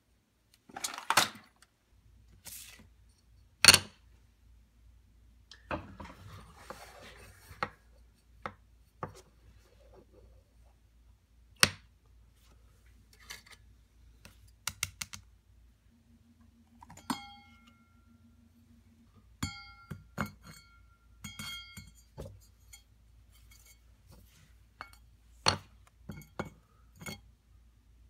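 Small tools and parts handled and set down on a stone countertop: a string of separate clicks and knocks, some with a short ringing metallic clink, over a faint low hum.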